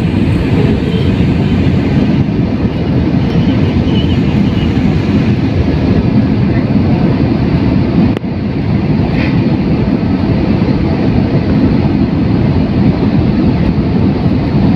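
Steady jet airliner cabin noise: engines and rushing air heard from a window seat, a deep, even roar with a brief dip about eight seconds in.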